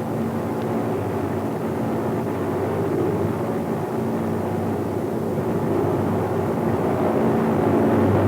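Steady drone of low-flying Douglas A-20 Havoc bombers' engines, an even hum that grows a little louder near the end.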